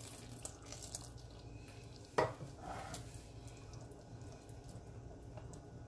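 Evaporated milk pouring into a pot of thick porridge, one sharp knock about two seconds in, then a silicone whisk stirring the porridge in the pot.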